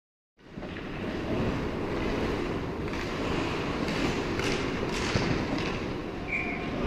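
Ice hockey play close by: skates scraping and carving on the ice with sharp clacks of sticks and puck, over the steady rumbling noise of the rink. The sound cuts in about half a second in, after a moment of dead silence.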